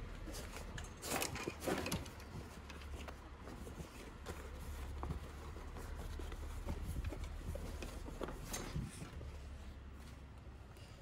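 A hand brushing and grabbing a plastic tarpaulin on a truck bed, giving a few brief rustles about a second in and again later, with light footsteps over a low steady hum.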